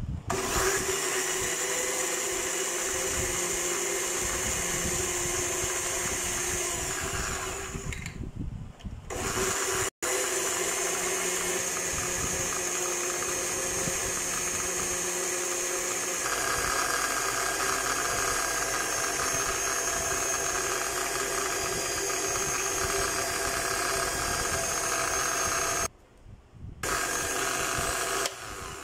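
Electric countertop blender running at a steady pitch, blending mint leaves with lemon juice, sugar and water into a smooth drink. It stops about eight seconds in and again briefly near the end, then starts up again each time.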